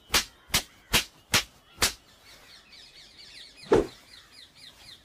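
A run of evenly spaced thumps, about two a second, that stops about two seconds in; then faint bird chirping, with one short louder sound near four seconds.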